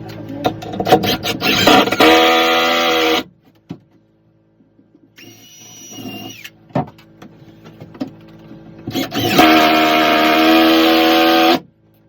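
A power tool motor runs in two short bursts, the second a few seconds longer than the first, each starting and stopping abruptly, with scattered knocks in between.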